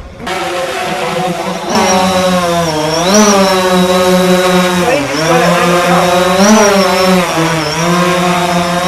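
DJI Phantom 4 quadcopter's motors and propellers humming as it flies back under return-to-home, getting louder about two seconds in as it nears. The pitch swings up and back down several times as the motors adjust.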